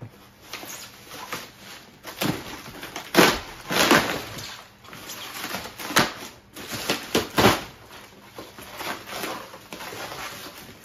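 Hardened spray-foam packing and plastic wrap being pulled and broken apart by hand: irregular crinkling and crunching, with several louder cracking bursts.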